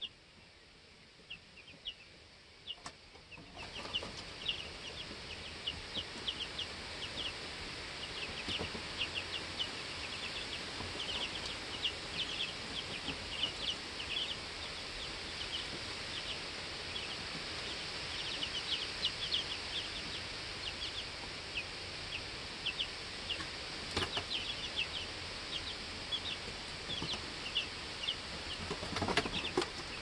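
Two-week-old baby chicks peeping: many short, high chirps in quick succession, each sliding down in pitch. About three to four seconds in, a steady hiss rises beneath them, and a few brief knocks come near the end.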